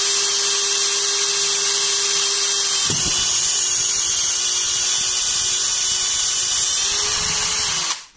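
Cordless drill running under load, boring into MDF with a countersink wood drill bit; its steady whine drops in pitch about three seconds in as the bit is pushed deeper, then stops abruptly near the end. The carbon-steel bit is dull, and the owner had to push hard to make it cut.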